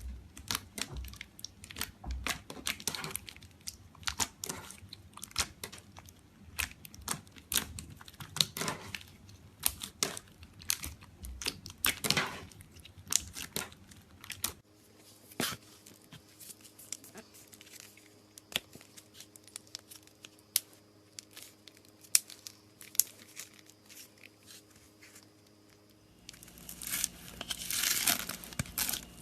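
Slime being squeezed, stretched and pressed by hand, giving rapid sticky clicks, pops and crackles. They are sparser in the middle and grow denser and louder near the end.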